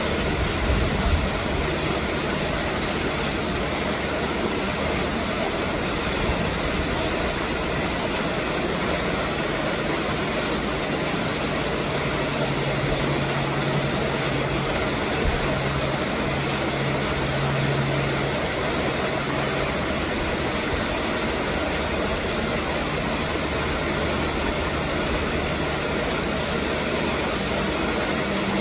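Steady, engine-like machine hum with a few low tones, a stronger low tone rising for several seconds in the middle.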